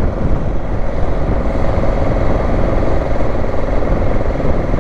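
Motorcycle engine running steadily while riding up a mountain road, under heavy wind rush on the GoPro's microphone.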